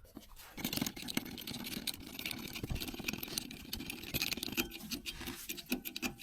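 Air pump inflating a flat boat-trailer tyre, running as a steady rough rattle that starts about half a second in and stops near the end.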